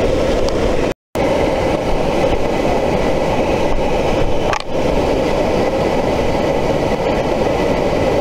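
Waterfall cascade rushing steadily and loudly over rocks into a pool. There is a short gap about a second in.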